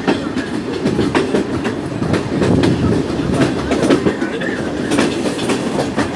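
Train running along the track, its wheels clicking irregularly over rail joints above a steady rumble.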